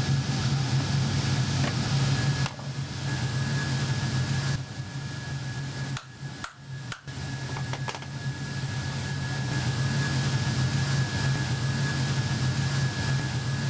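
Steady mechanical hum from a fan or ventilation unit, with a thin high whine over it, dipping briefly as it cuts between takes. A couple of faint knocks come about halfway through.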